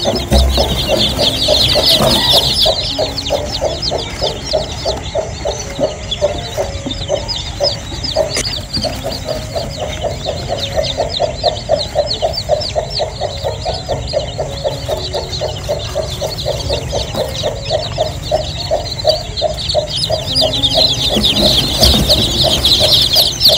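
A brood of newly hatched chicks peeping in a constant high-pitched chorus, loudest near the start and the end, over a hen clucking steadily at about three clucks a second.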